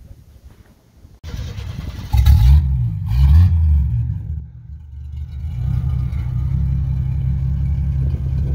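1973 Pontiac Ventura's 250 inline six starting, running through a new 2-inch exhaust split into dual Super 10 mufflers that dump after the rear axle. About a second in the engine is started, it revs up twice, then it settles into a steady idle.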